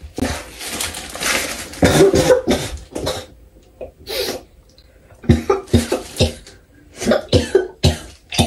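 A woman coughing again and again in several bouts, with a lull about three to five seconds in.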